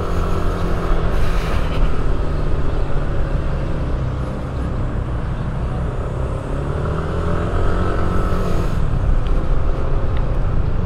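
Motor scooter engine running at low speed with a steady low rumble. Its pitch rises and falls gently about two-thirds of the way through.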